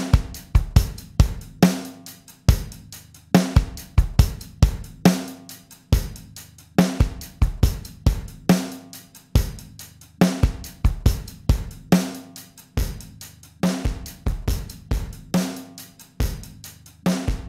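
Recorded drum kit loop, kick, snare and hi-hat in a steady repeating beat, played through a Universal Audio emulation of a Studer A800 tape machine. Its input level is being raised so that the tape emulation saturates and the drums take on tape distortion.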